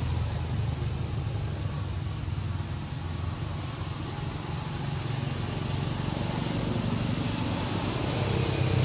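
Steady low mechanical hum, like an engine or motor running, under a constant hiss; it does not change.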